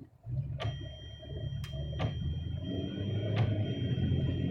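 Car interior noise: a low engine and road rumble that starts about a quarter second in and grows steadily louder as the car gets moving, with a few scattered sharp clicks and a faint steady high-pitched tone.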